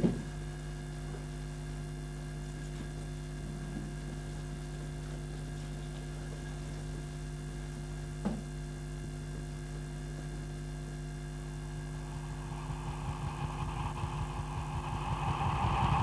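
Steady electrical mains hum with a sharp click at the start and another about eight seconds in; over the last few seconds a rushing noise with a fluttering low throb rises.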